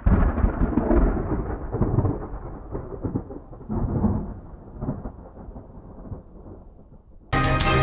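Thunder rumbling in several rolls, loudest at first and fading away. Music cuts in near the end.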